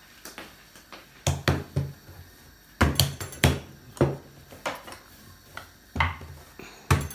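Wooden rolling pin knocking and rolling on a wooden board while flattening a round of flatbread dough: about ten uneven dull knocks.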